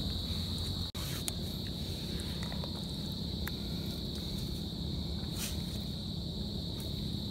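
Insects trilling steadily in one high tone over a low steady rumble, with a few short scrapes of a knife digging into wet sand.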